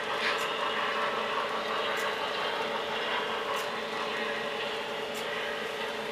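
Model train running on the layout track: a steady whir of motor and wheels, with a faint sharp click repeating about every second and a half.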